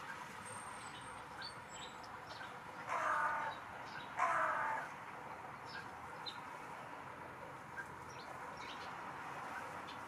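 Hooded crow cawing twice: two harsh caws a little over a second apart, about three seconds in.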